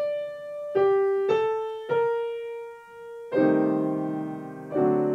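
Piano playing a short phrase: four single notes, then two full chords about a second and a half apart, each left to ring and fade.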